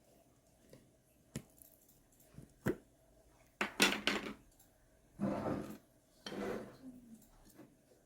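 Kitchenware being handled, dishes and utensils knocking and scraping: a couple of sharp clicks, then three short clattering, scraping bursts.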